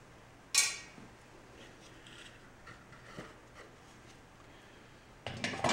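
Workbench handling noises as the small plastic cooling fan is pulled off an electric motor's shaft and set aside: a sharp clack about half a second in, faint clicks and rubs, then a louder clatter of knocks near the end.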